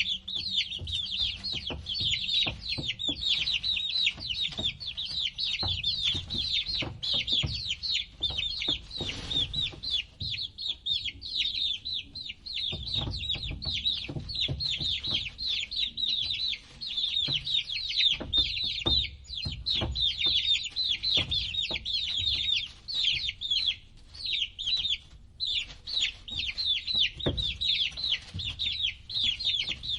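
Domestic chicks peeping: many short, high-pitched calls overlapping in a continuous chorus, with soft low knocks now and then.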